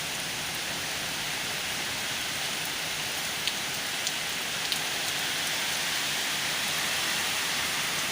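Heavy rain falling steadily during a thunderstorm, with a few sharp ticks about halfway through.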